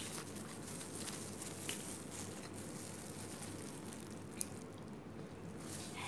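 A person chewing food close to the microphone: a few short, wet mouth clicks and smacks over faint steady room noise.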